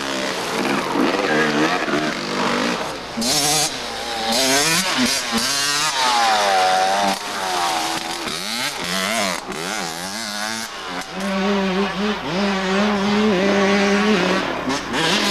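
Dirt bike engines revving up and down, the pitch rising and falling again and again as the throttle is worked. From about eleven seconds in, one engine holds a steadier pitch.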